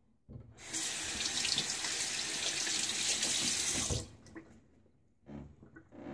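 Bathroom sink tap turned on, water running into the basin for about three seconds, then shut off abruptly. A few light knocks follow near the end.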